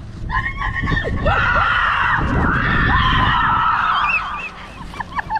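Several children screaming together in long, high-pitched, overlapping shrieks, breaking into short yelps near the end.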